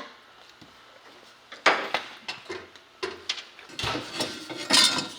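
Loose metal parts being handled and set down: one sharp metal clank about a second and a half in, a few lighter clinks, then a run of loud clattering near the end.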